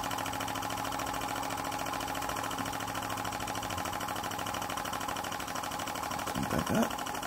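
Graham Industries VR1A double-acting model steam engine running steadily and fast on live steam, its rapid exhaust beats blending with the whirr of the belt-driven Baker fan it is driving, which puts a good load on the engine. A brief louder rising-and-falling sound comes near the end.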